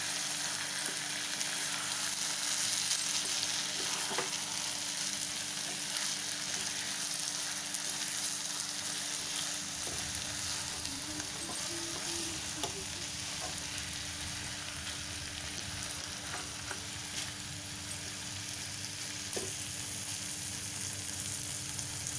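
Cabbage, peas and tomato sizzling in a non-stick frying pan while being stirred with a wooden spatula, with steady hissing broken by scattered light taps and scrapes of the spatula against the pan.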